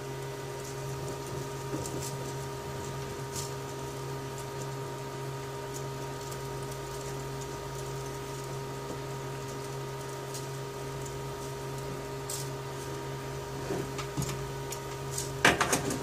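Faint scattered ticks of thin telephone wires being pulled taut through the wire comb of an Amphenol RJ21 insertion tool, over a steady hum. Near the end comes a quick cluster of sharp clacks as the tool's handles are moved.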